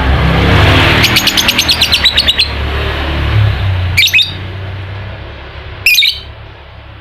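Lovebird calling: a fast run of shrill chirps, about nine a second, lasting over a second, then two single sharp calls about four and six seconds in, over a steady low rumble. The rapid chirp run is the start of the lovebird's chattering 'ngekek' song.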